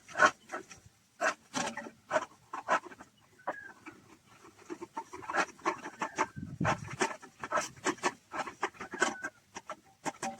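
Irregular rubbing, scraping and knocking of an electric pressure cooker's inner pot being washed by hand with a soft cloth and soapy water.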